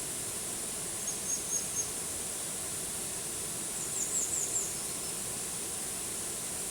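Waterfall's steady rush of water, with a bird's high, thin chirps over it: four short notes about a second in, then a quick run of falling notes about four seconds in.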